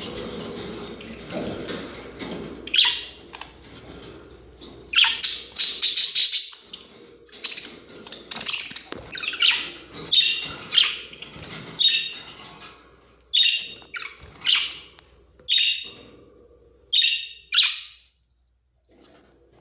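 Parrots calling: a dense run of chirps, then short, high chirps repeated about once a second.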